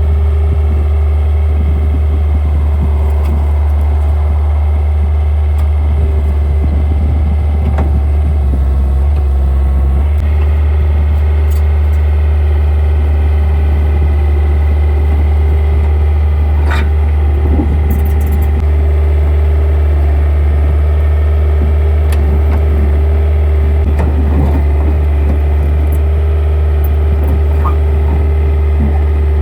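Skid steer engine running steadily with a heavy low hum, its pitch briefly shifting about nine seconds in.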